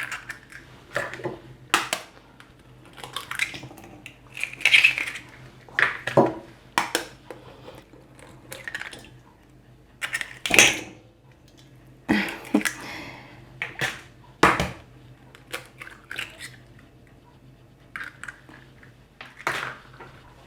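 Eggs being cracked one after another against the rim of a bowl, with sharp taps of shell on the bowl, clinks of dishware and the crunch of broken shells, in irregular knocks with short pauses between them.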